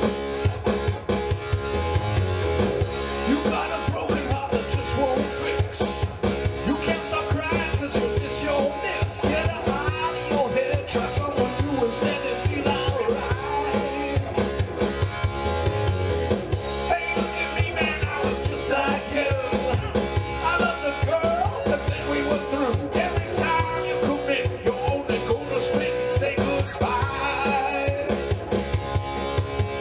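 Rock music: a band with drum kit and electric guitar playing to a steady beat, with pitched lines that bend up and down over it.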